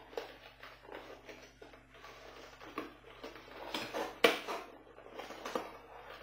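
Cardboard box and plastic packaging being pulled and handled: irregular rustling, scraping and clicks, with a sharp knock about four seconds in.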